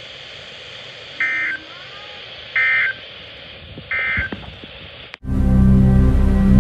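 Three short bursts of Emergency Alert System SAME end-of-message data tones, evenly spaced about 1.4 s apart, over steady broadcast hiss; they signal the end of the severe thunderstorm warning. About five seconds in, the hiss cuts off and loud music begins.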